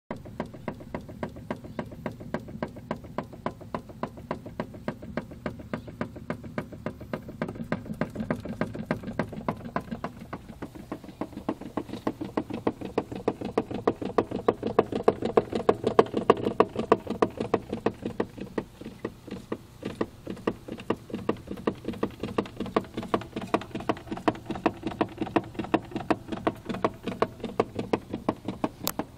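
Power-steering noise on an Audi A4 B5, which the owner puts down to the steering rack: a regular pulsing of about three beats a second over a steady hum. It grows louder and quicker about halfway through, then eases back.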